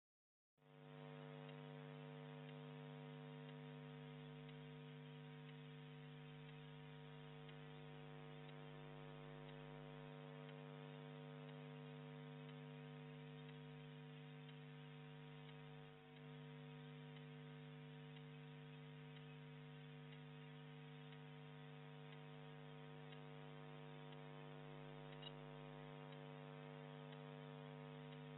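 Faint, steady electrical mains hum, a low buzz of several steady tones, starting half a second in after a moment of dead silence, with a brief dip about sixteen seconds in.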